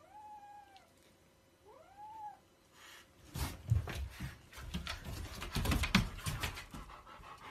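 Young kitten mewing twice, two short high cries that rise and fall, in the first two seconds. From about three seconds in, a louder stretch of irregular rustling and thumps.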